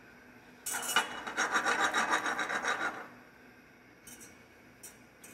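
Wire whisk scraping quickly around the inside of a stainless steel mixing bowl in rapid, even strokes for about two seconds, then a few light clicks of metal.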